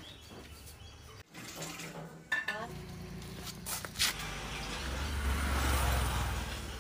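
A motorbike passing on the road, growing louder in the second half to its loudest about six seconds in and then fading, with a few sharp clinks of tea glasses and tumblers before it.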